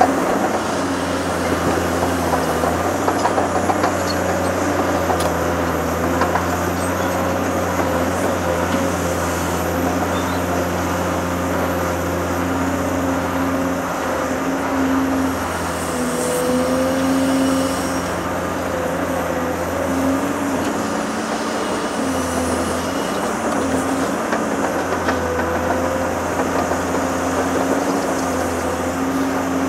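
Large Caterpillar diesel engines running steadily as the 390D excavator works and loads the 773D dump truck, the engine note wavering slightly in pitch now and then.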